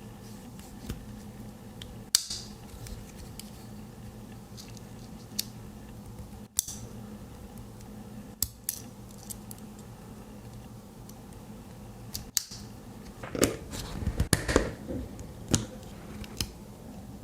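Sharp clicks and small metallic taps of a Victorinox Swiss Army knife being handled, its tools snapping open and shut, a few isolated clicks and then a busier run of them near the end, over a steady low hum.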